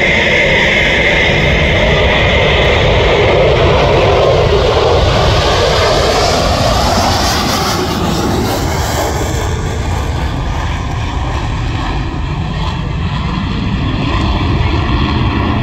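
Two Boeing Super Hornet-family jets, each with twin General Electric F414 engines, taking off together in formation: a loud, continuous jet roar, with sweeping tones in the second half as they climb away.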